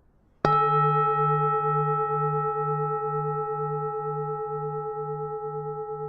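Buddhist pagoda bell struck once, about half a second in, then ringing out with several steady tones that fade slowly over a pulsing low hum.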